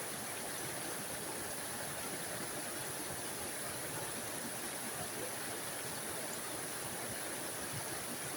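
Small forest waterfall: water splashing and rushing in a steady, even hiss with no pauses.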